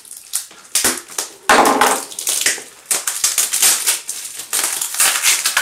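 Plastic parcel wrapping crinkling and tearing as it is cut with a knife and ripped open by hand, in irregular crackling bursts, with a louder crunch about a second and a half in.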